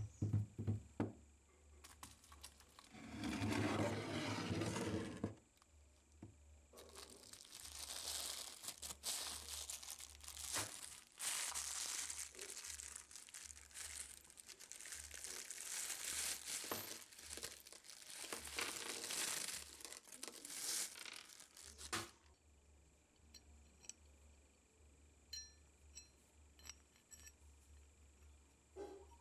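A thin plastic bag crinkling and rustling as it is handled and unwrapped from the iron's handle, in long spells. Near the end there are a few light metal clinks as the handle parts are fitted together.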